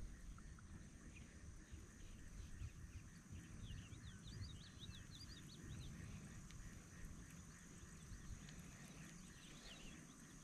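Near silence over a faint low rumble, with faint high chirping calls of small animals in a cluster around four seconds in and again near the end.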